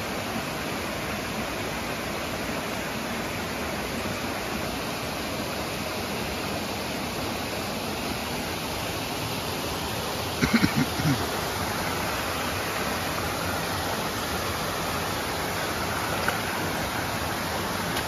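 Mountain creek water rushing steadily over rocks and down a small waterfall, a constant even wash. About ten seconds in, a brief cluster of short sounds rises above it for less than a second.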